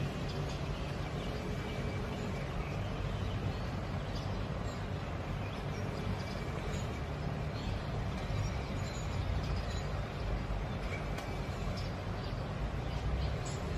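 Steady outdoor background rumble with a few faint, short bird chirps.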